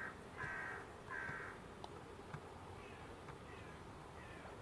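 A bird calling outdoors: a few harsh calls in quick succession in the first second and a half, then three fainter short falling calls, over a faint steady hum.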